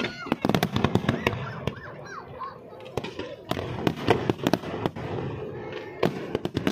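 Fireworks display: many bangs and crackling bursts from aerial shells going off in quick succession. The bangs come thickest in the first second and a half and again around four seconds in.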